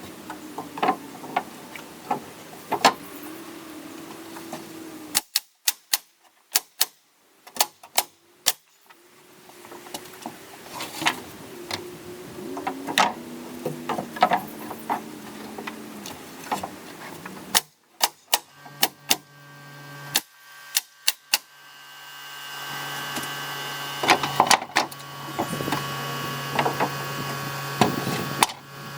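Carpentry work on a wood frame: a string of sharp, irregular knocks like hammer blows and nailing, broken by several abrupt cuts. A steady motor hum comes in after about eighteen seconds and grows louder towards the end.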